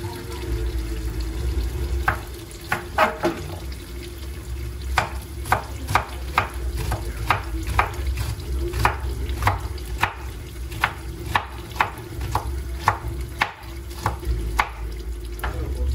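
Regular knocks of a kitchen utensil, about two a second, over a low steady hum.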